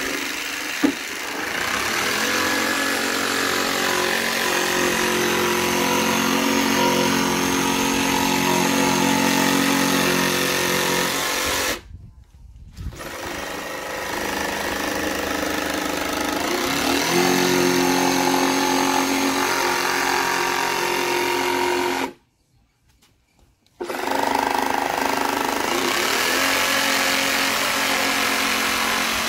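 Makita 18V cordless jigsaw running as it cuts around a hole in a black plastic waste-water tank, widening it by a couple of millimetres for a hatch. The motor hums steadily, its pitch shifting slightly as it works, and it stops twice for a moment, around twelve seconds in and again near twenty-two seconds.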